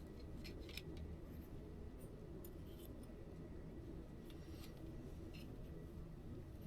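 Faint, scattered light clicks and scrapes of copper pipe and fittings being handled and fluxed, over a steady low background rumble.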